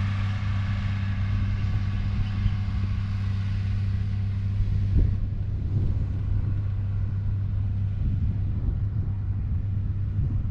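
An engine running steadily with a low, even hum; a higher whine over it fades out about halfway through, and wind buffets the microphone in the second half.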